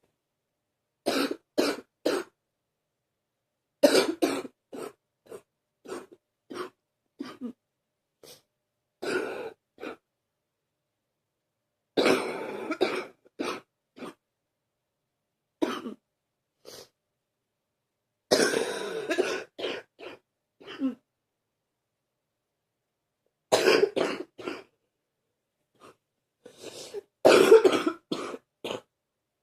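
Deep coughing in a series of bouts, each a cluster of a few short hacks, with silent gaps of one to three seconds between them; the longer bouts fall near the middle and the end.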